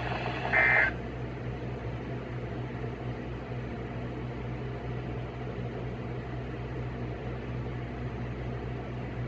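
Steady electrical hum and hiss of a radio receiver between broadcast alerts, after a brief burst of high-pitched tones about half a second in.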